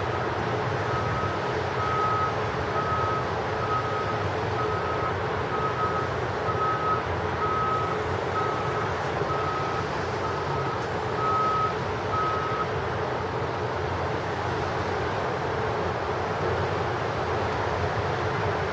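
A vehicle's reversing alarm beeping at an even pace, about four beeps every three seconds, starting about a second in and stopping a little past halfway. Under it runs a steady rumble of traffic.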